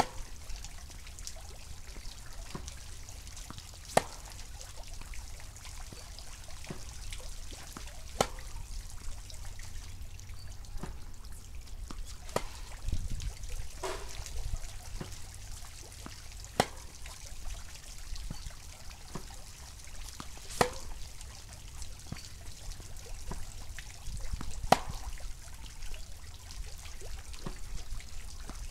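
Tennis balls struck with a Yonex VCORE Tour G racket on groundstrokes: a sharp pock about every four seconds, with fainter ball bounces between the hits, over a steady background hiss.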